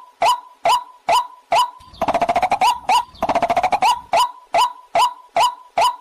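White-breasted waterhen calling: short, sharp notes repeated evenly, about two and a half a second. About two seconds in, the notes give way to two fast, rattling trills, then the even notes resume.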